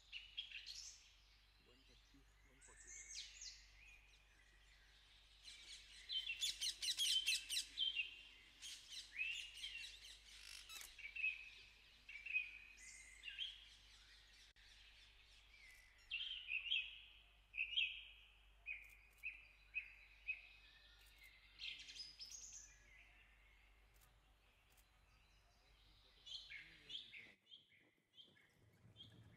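Rose-ringed parakeets calling: a long series of short, shrill squawks. They are densest and loudest about six to eight seconds in and thin out near the end.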